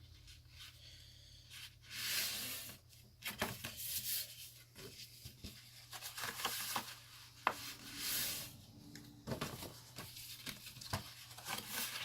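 Heavy cardstock being folded and creased along its score lines: a few sliding, rustling swishes of paper with small taps and clicks in between.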